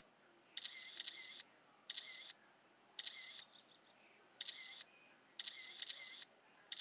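Faint camera shutter sound effect, six shots about a second apart, each a quick double click.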